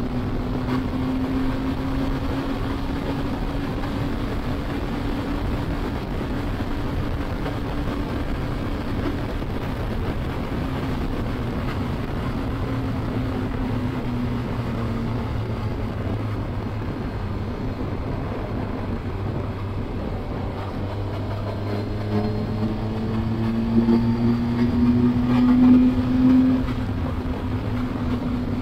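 Triumph Tiger 1200 Explorer's inline-three engine running at a steady road speed under a rush of wind noise. Near the end the engine note rises as the bike accelerates, then drops back as the throttle eases off.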